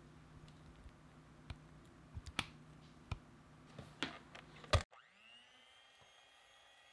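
A few sharp clicks and knocks, the loudest just before five seconds in, then an electric hand mixer spins up with a rising whine and runs steadily, whipping egg yolks into creamed butter.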